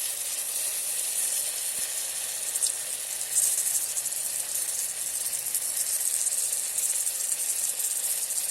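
Bitter gourd and spices sizzling in hot oil in an electric kettle, a steady frying hiss with fine crackling throughout.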